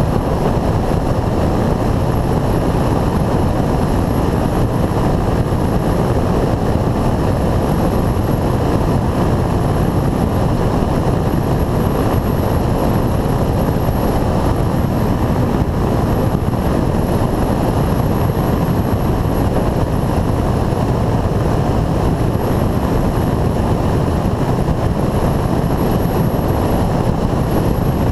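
Titan Tornado II light aircraft's engine and propeller running steadily in flight, heard from a wing-mounted GoPro with a dense rush of air over the microphone. A thin, steady high whine sits above the noise.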